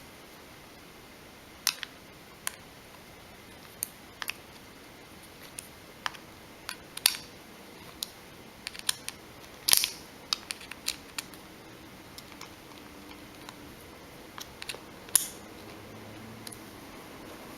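Small, sharp, irregular clicks and taps of a precision screwdriver and plastic and metal phone parts as a Galaxy Nexus i9250 is reassembled, a few clicks a second at most, with a louder click about ten seconds in and another near the end.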